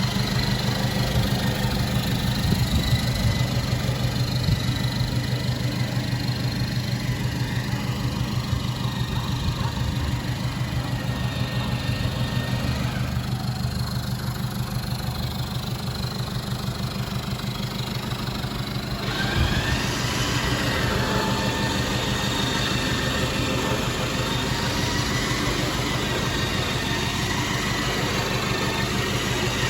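Toyota Hilux engine idling steadily, with a thin wavering whine above it. The whine drops away for a few seconds a little before halfway and comes back with a small jolt about two-thirds through.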